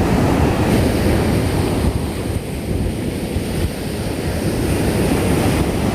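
Ocean surf washing onto the beach, with wind buffeting the microphone as a heavy low rumble.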